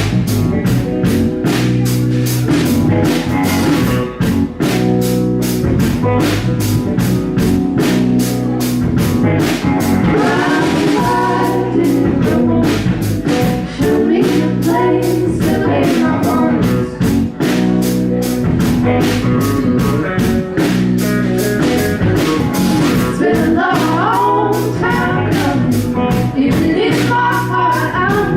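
Live rock band playing a song with singing, electric guitar and drum kit, recorded loud from the audience.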